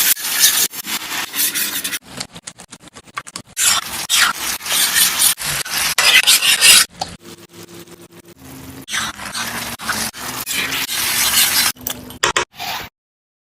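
A cooking utensil scraping and stirring in a pan, in repeated scratchy bursts with sharp clicks.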